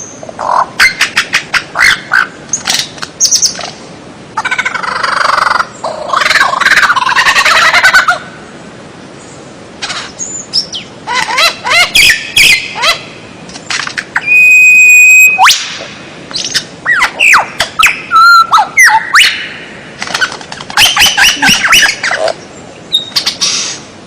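A songbird singing a loud, varied song. It runs through quick chirps, rapid clicking trills, buzzy rattling phrases and gliding whistles, with one held whistle a little past halfway.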